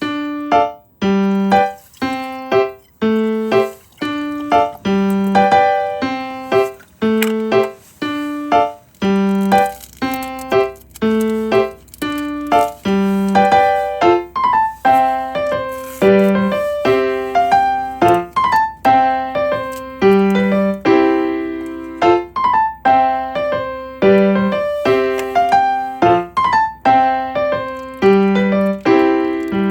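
Background music: piano playing a gentle, evenly paced melody with notes struck about once a second.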